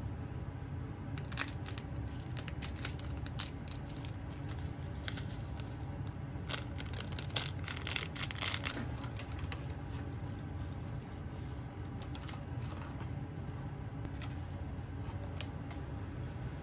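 Food being handled and served: chopsticks clicking as kimchi is set on a plate, then a plastic packet of crushed dried seaweed crinkling as the flakes are crumbled over a pot of ramen, with the crinkling densest midway. Under it runs a steady low hum.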